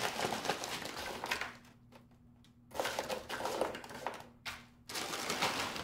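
Zip-top plastic bag crinkling as chopped vegetables are shaken out of it and scattered onto parchment paper on a baking tray, in rustling stretches with a pause of about a second about one and a half seconds in.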